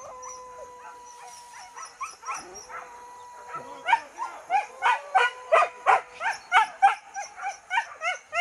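Hunting dogs yelping and barking in pursuit of a wild boar: faint, scattered yelps at first, then from about four seconds in a fast run of loud, high yelps, two to three a second.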